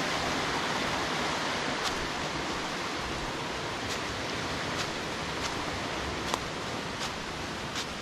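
Small mountain stream rushing over rocks, a steady hiss of running water that fades slightly. Faint footsteps on dry leaves and stones tick through it now and then.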